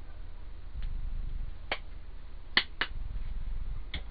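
Four short, sharp clicks of small objects being handled: one a little under two seconds in, a quick pair just after two and a half seconds, and one near the end, over a low steady hum.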